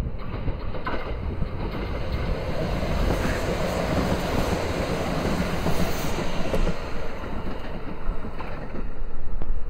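Kintetsu electric train passing on the tracks: a steady rumble of wheels on rail that swells to its loudest in the middle and then eases.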